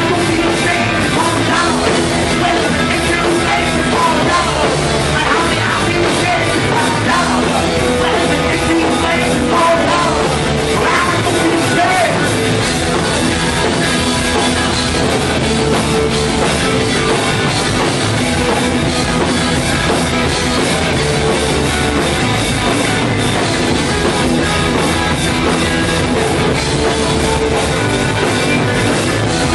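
Punk rock band playing live and loud, with electric guitars, bass and a drum kit in a dense, unbroken wall of sound.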